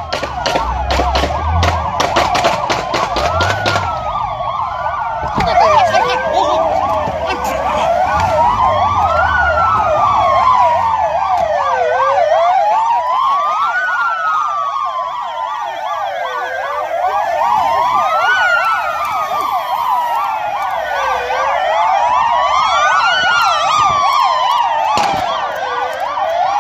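Police sirens sounding at once: a slow wail rising and falling about every four seconds over a fast warbling yelp. A rapid run of clicks and a low engine rumble come through in the first few seconds.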